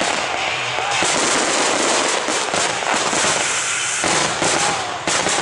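Fireworks finale: a continuous barrage of crackling, popping shell bursts with no break.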